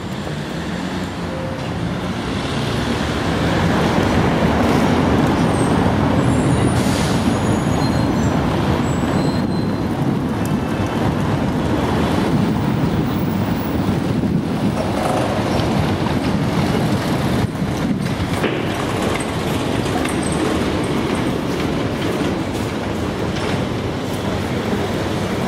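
Steady street traffic noise, a dense low rumble that swells a few seconds in and then holds.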